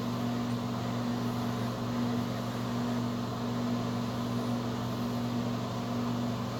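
Steady low electrical hum with hiss and no voice coming through: the audio of a live video call whose connection is breaking up.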